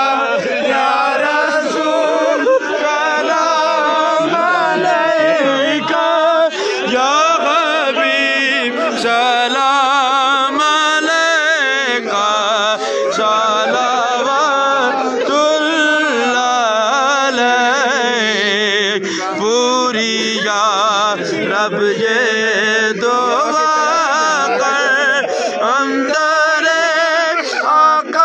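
Devotional Islamic naat sung in a chanting style, with long wavering, ornamented melodic lines.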